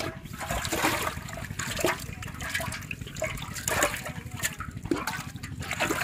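Water sloshing and splashing in an aluminium pot as hands swish through it and handle a caught fish, in irregular splashes.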